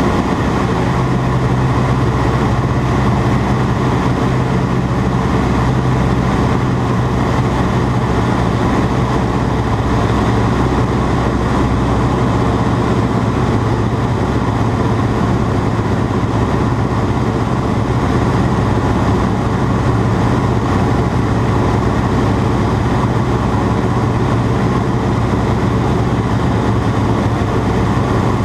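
Ag-Cat agricultural biplane's engine running steadily at an unchanging pitch, with a strong low note underneath.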